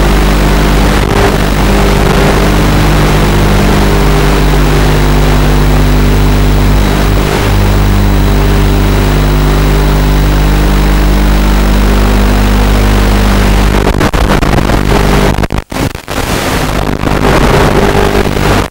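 Quadcopter's electric motors and propellers buzzing steadily in flight, heard through a camera mounted on the craft. The sound drops out sharply twice about three seconds before the end.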